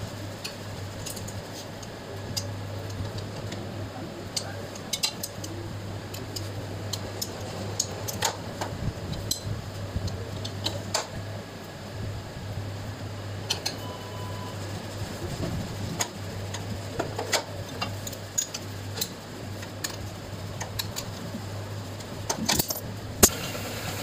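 Hand tools clicking and clinking against a Hero Splendor 100 cc engine's parts in irregular taps, the loudest near the end, over a steady low hum.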